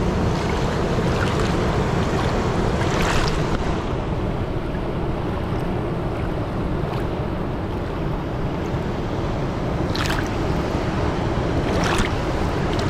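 Fast mountain creek rushing over rocks in a steady, full wash of water, with a few brief brighter splashes.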